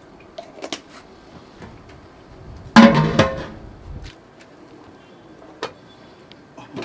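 A wide aluminium lid is set down on a large aluminium cooking pot, giving one loud metallic clang that rings briefly, about three seconds in. A few light clicks and knocks of the pots come before and after.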